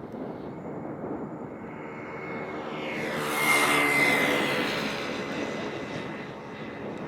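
Boeing 777-300ER's twin GE90-115B turbofans at take-off thrust as the jet passes: the noise swells to its loudest a little past halfway, with a high whine falling in pitch as it goes by, then eases off.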